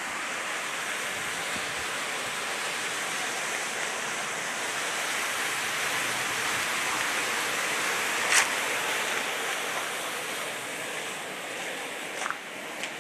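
Steady rush of water falling at a hydroelectric dam, swelling a little toward the middle and easing off near the end. A sharp click about eight seconds in, and two fainter ones near the end.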